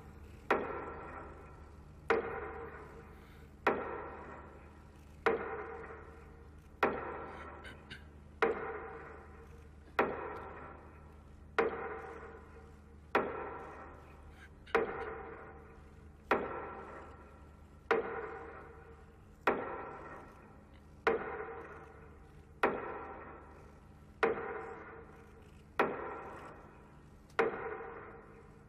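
Slow metronome beating out the minute of silence, one sharp stroke about every second and a half, each with a ringing tone that fades before the next.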